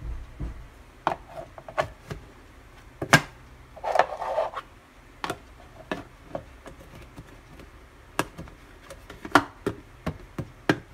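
Plastic water pitchers being handled on a kitchen counter, their lids pressed shut: a string of sharp plastic clicks and knocks, with a short scraping rustle about four seconds in.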